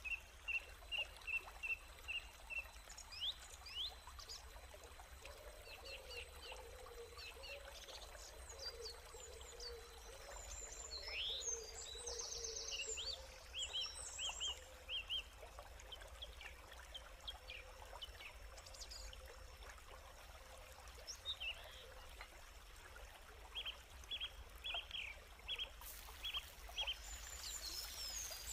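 Outdoor ambience of birds chirping in repeated short calls over a steady faint background, with water being poured into a wok of snails.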